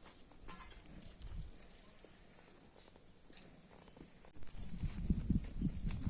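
Steady high-pitched insect chorus. About two-thirds of the way in, uneven low rumbling on the microphone starts and the insect sound grows louder.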